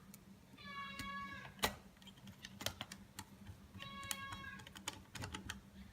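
A domestic cat meowing twice, about a second in and again about four seconds in, each a short even-pitched call. Between and around the meows, small sharp clicks and taps of screws and plastic parts being handled.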